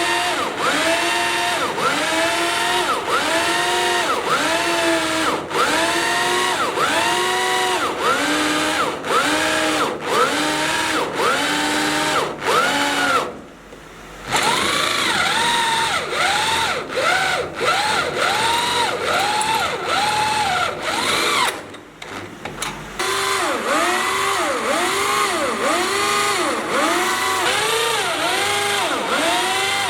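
Electric power drill boring into steel, the motor's pitch rising and sagging over and over, about every half second, as it loads up. The motor briefly stops twice, near the middle and about two-thirds through.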